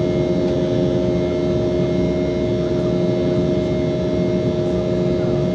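Embraer E195's GE CF34-10E turbofans and airflow heard from inside the cabin under takeoff or climb power, a steady drone with a constant hum.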